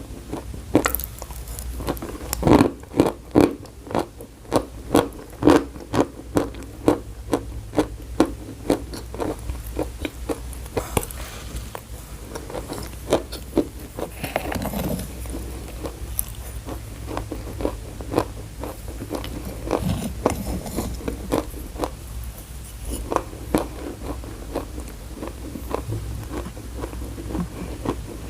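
Close-up crunching and chewing of chalk: a quick run of sharp crisp crunches at first, then slower irregular bites and grinding chews, over a steady low hum.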